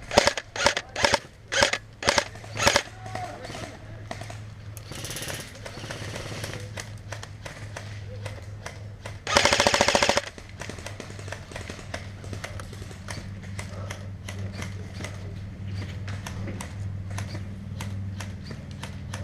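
Airsoft guns firing. A string of short bursts comes in the first three seconds, a fainter rattle follows a few seconds later, and near the middle there is one rapid full-auto burst lasting about a second.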